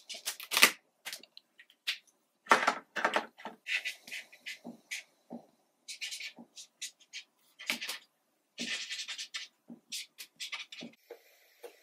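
Brush-tip marker pens scratching across paper in quick, irregular strokes with short pauses between them.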